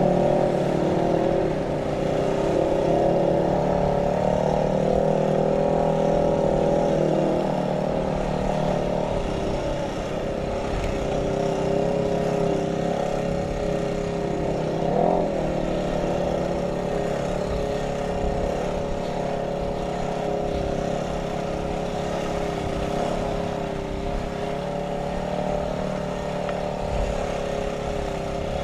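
ATV engine running steadily under way, its note wavering a little up and down with the throttle.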